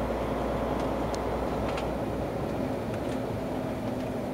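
Lorry engine and road noise heard inside the cab while driving, steady throughout, with a few light clicks or rattles.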